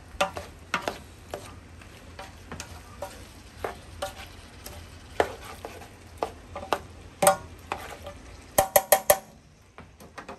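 A utensil stirring and scraping onions, celery and bell pepper with meat in a non-stick roasting pan as they sauté, with a faint sizzle underneath and irregular knocks against the pan. Near the end come four quick knocks in a row, then the stirring stops.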